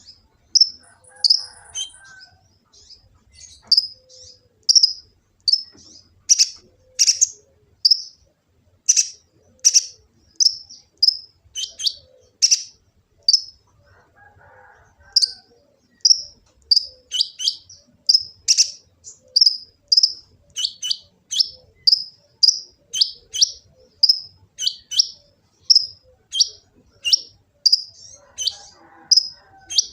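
Kolibri ninja sunbird calling: a long run of short, sharp, high chirps, about two a second, with a brief pause about halfway through.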